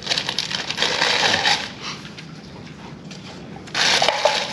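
Plastic bags crinkling and rustling as food is handled, in crackly bouts, with a louder bout near the end.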